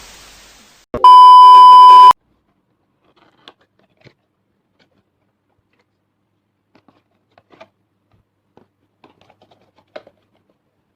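A loud, steady beep tone, a single pitch held for about a second, starting about a second in; it is an edited-in bleep right after a spoken expletive. Faint scattered clicks and rustles of the box and packaging being handled follow.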